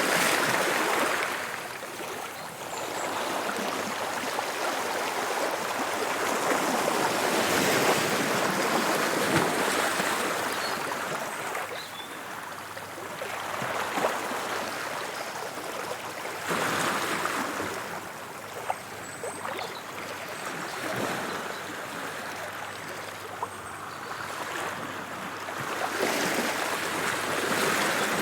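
Sea waves washing in and draining back, swelling and easing every several seconds.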